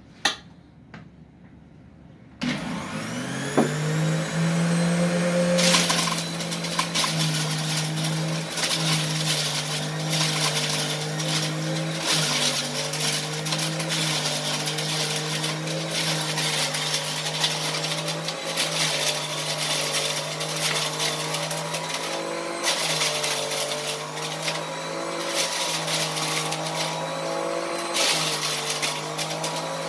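A sharp click, then an electric centrifugal juicer is switched on about two seconds in: its motor spins up and runs with a steady whir while grapes are pressed down the feed chute. Its pitch dips briefly every few seconds as the load comes on.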